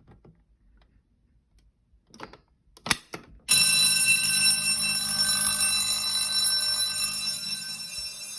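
Fire-Lite BG-12L pull station clicks as it is pushed in and pulled down. About three and a half seconds in, the fire alarm system's vibrating bells, among them an Edwards 439D-6AWC, start ringing loudly and continuously.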